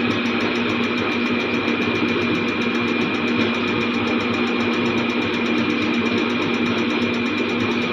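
Diesel engine running steadily at idle, with a fast, even ticking over a constant hum.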